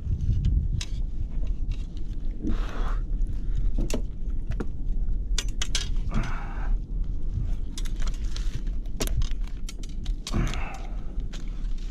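Scattered metallic clinks and rattles from a steel clip fish stringer and fish-grip pliers being handled as a fish is put on the stringer, over a steady low rumble.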